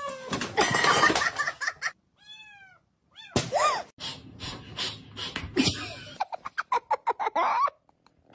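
A cat meowing twice, each call rising and then falling in pitch, followed by a person laughing in quick bursts.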